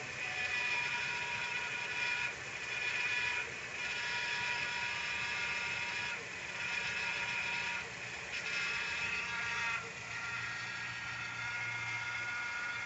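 2012 Nissan Sentra engine running with the accessory belt removed, giving a steady high-pitched whine of several tones with a low hum beneath, dipping briefly a few times. It is the strange noise the owner traces to the crankshaft pulley.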